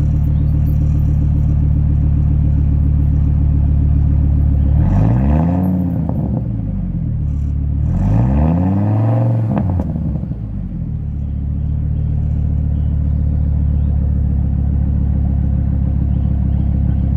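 Engine with a new exhaust system idling shortly after a cold start. It is revved twice, about five and eight seconds in, its pitch rising and dropping back to idle each time, the second rev held a little longer.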